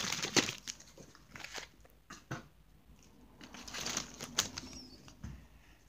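Foil Pokémon booster pack and trading cards crinkling and rustling as they are handled, in short scattered rustles with a few light clicks.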